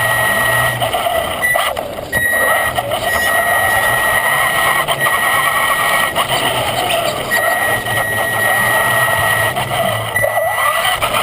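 Traxxas Slash RC truck's electric motor and geared drivetrain whining as it drives, heard from the on-board camera, with a steady high whine that cuts out briefly a few times as the throttle eases, over rolling and rattling noise.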